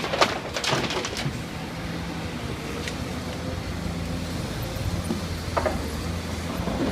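Diesel engine of a LiuGong hydraulic excavator running steadily at a dig, with a quick run of sharp metallic clanks in the first second and another clank about two-thirds of the way through.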